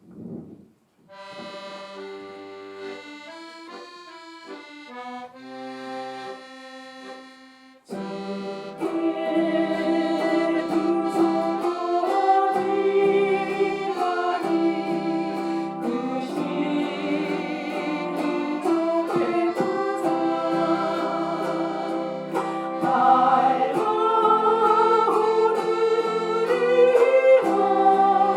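Accordion and chromaharp playing the introduction of a gospel song. The first several seconds are soft, sparse held notes; about eight seconds in, the full sound comes in louder, with plucked chords over sustained accordion tones.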